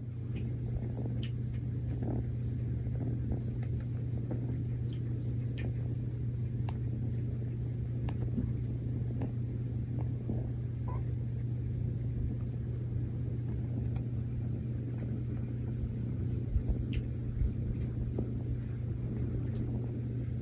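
A kitten purring close to the microphone: a big, steady, low rumbling purr that runs on without a break.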